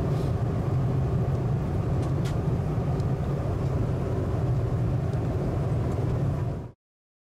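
Steady low rumble of an airliner cabin in flight, with a couple of faint clicks near the middle; it cuts off suddenly near the end.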